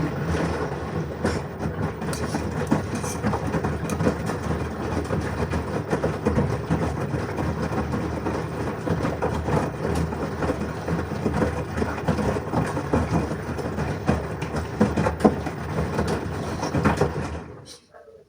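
LG washing machine running a wash with its drum turning: a steady noise full of small, irregular knocks and clatters. It cuts off shortly before the end.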